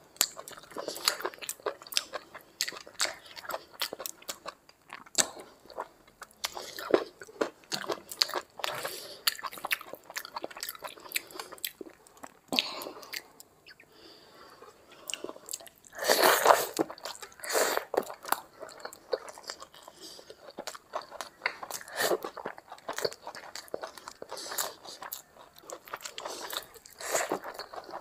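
Close-miked chewing and biting as a person eats rice and curry by hand, with many short sharp mouth clicks. The loudest stretch of chewing comes about sixteen seconds in.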